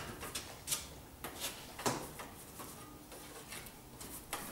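A baking tin being greased by hand with a block of butter: light rubbing and scraping with scattered small clicks and taps.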